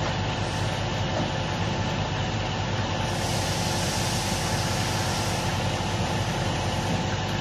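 Heavy diesel machinery running steadily while a crane's clamshell grab drops ballast stones into a Stoneblower track machine's hopper; the falling stone adds a hissing rush from about three seconds in, fading after about two and a half seconds.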